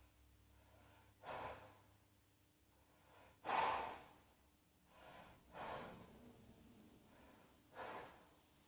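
A person breathing audibly, four breaths about two seconds apart, the second the loudest, as they catch their breath between coughs.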